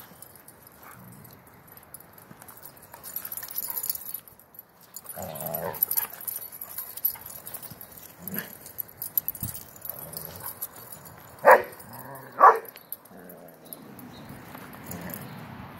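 Gollie puppies (golden retriever–collie mixes) playing and making short dog calls, with two loud barks about a second apart roughly two-thirds of the way in.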